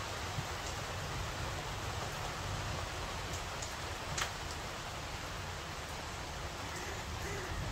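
Steady rain falling, an even hiss, with a few sharp ticks, the clearest about four seconds in.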